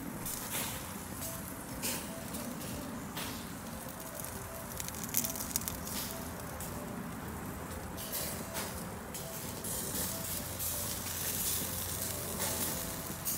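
Beyond Meat plant-based burger patties and sausages sizzling on a charcoal grill grate, with a steady hiss and frequent sharp crackles and pops from the hot coals and dripping fat. A cluster of louder pops comes about five seconds in.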